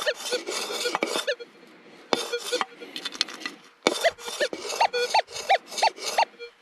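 Dirt and gravel being scraped and scooped while a Minelab Manticore metal detector gives short rising target beeps. The beeps come about three a second in the second half, over a faint steady hum.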